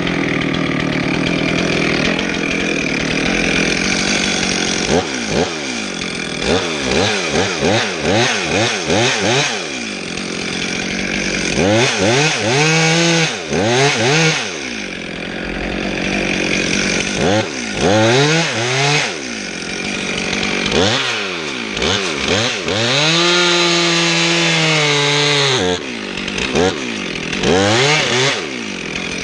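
Two-stroke chainsaw cutting through tree trunk wood, its engine revved up and down again and again, with longer stretches held at full throttle in the cut.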